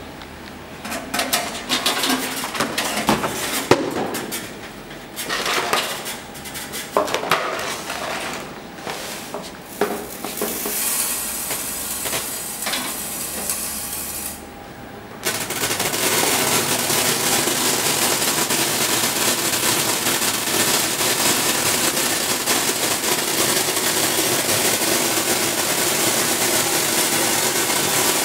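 Hard lumps of gum arabic clattering and knocking irregularly on the steel hopper and chutes of an Akyurek Sorturk C-4+ optical colour sorter. About fifteen seconds in, the sorter starts running with a sudden, steady mechanical noise as it feeds and sorts the gum.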